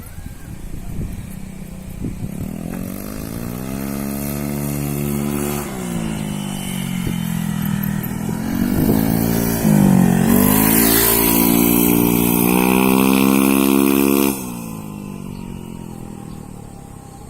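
Honda Vario scooter's single-cylinder engine being revved: the pitch climbs from idle over a few seconds, dips briefly, climbs again and is held high for about four seconds. Then the throttle is released and it drops back toward idle.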